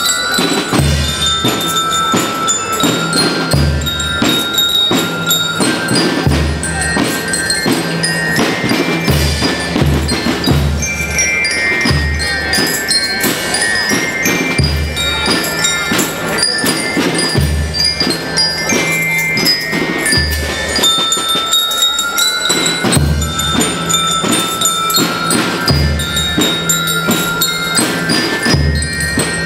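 Children's marching band playing a tune on bell lyres (marching glockenspiels) over steady bass drum and snare drum beats. The bass drum pauses for a couple of seconds about two-thirds of the way through while the lyres keep playing.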